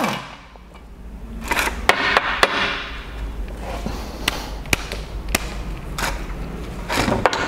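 Irregular metallic clicks and knocks of a 22 mm socket wrench and tools working the propeller nut off an outboard's prop shaft.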